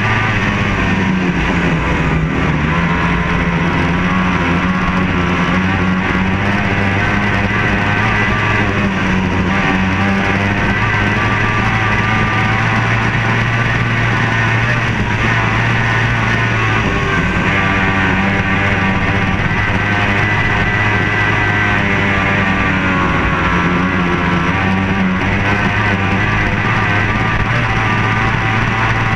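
Rock music with distorted electric guitar, loud and continuous.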